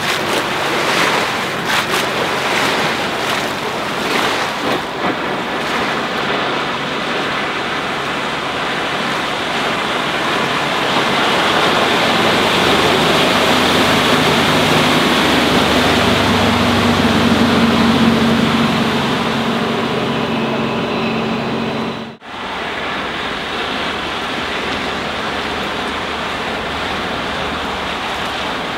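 Wind buffeting the microphone over the rush of water, with the Volvo Penta D3-190 five-cylinder diesel stern drive of a Flipper 705 HT motorboat running at speed, its engine hum loudest a little before the middle as the boat passes close. The sound cuts out for a moment about three-quarters through, then continues as a steady rushing noise.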